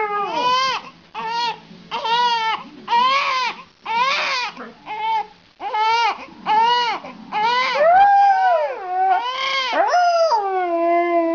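A baby crying in repeated wails with a dog howling along, ending in one long falling howl.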